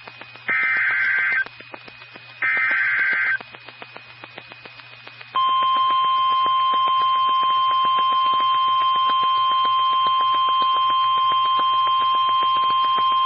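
NOAA Weather Radio Emergency Alert System signal picked up on a radio receiver: the last two bursts of the SAME digital header, each a harsh warbling data screech about a second long, then a pause, then the steady 1050 Hz warning alarm tone starting about five seconds in. Crackling static clicks and a low hum run underneath.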